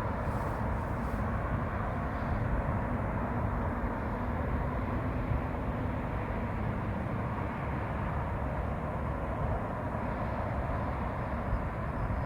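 Steady outdoor background noise, deep and even throughout, with no distinct events.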